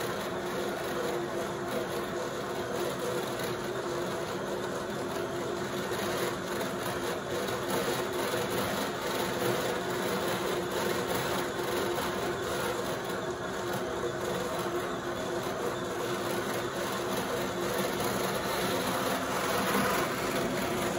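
Brother continuous rover carding and roving machine running steadily, its drums and drives turning with a constant hum as wool is drawn through into roving.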